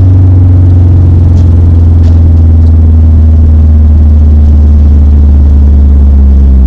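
2017 Subaru STI's turbocharged flat-four engine running loudly at steady revs, its pitch sinking slowly as the car eases off, with a few faint clicks over it.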